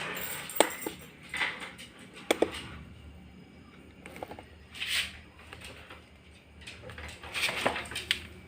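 Handling noises as equipment is unplugged: a few sharp clicks and knocks with short scraping and rustling sounds, over a faint steady hum.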